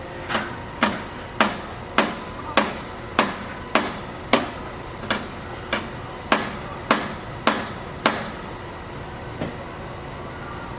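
A hammer striking repeatedly at a steady pace, about fourteen sharp blows a little more than half a second apart, then a pause and one lighter blow near the end.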